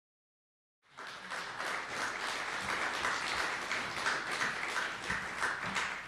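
Audience applauding, many hands clapping together; it begins suddenly about a second in after silence.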